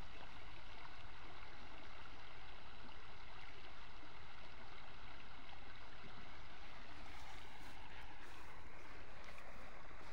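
Steady outdoor background noise, an even hiss with no distinct event, and a few faint clicks near the end.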